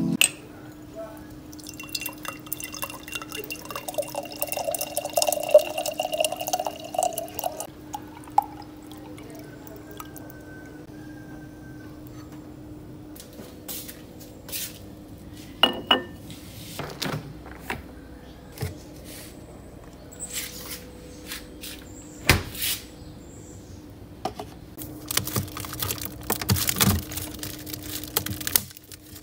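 Water poured into a glass jar for several seconds, the sound rising slightly in pitch as the jar fills, followed by a few sharp clinks and knocks of the glass. Near the end come rustling and knocking of items being handled.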